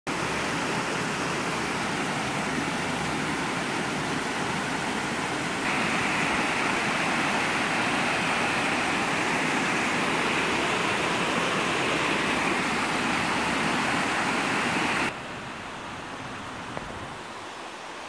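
Creek water rushing over rock ledges in small waterfalls, a steady hiss. It grows louder and brighter about six seconds in, where the water is close, then drops sharply about fifteen seconds in to a softer flow.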